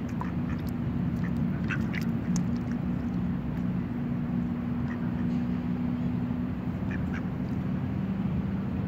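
Female mallard giving a few short quacks, a cluster about two seconds in and another near seven seconds, over a steady low hum.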